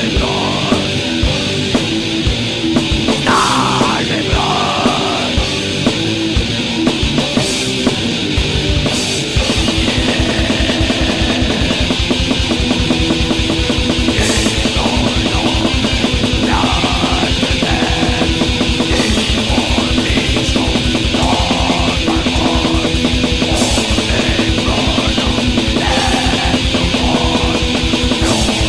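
Black metal song with electric guitars and drum kit; about nine seconds in the drumming turns into a very fast, dense pattern that carries on to the end.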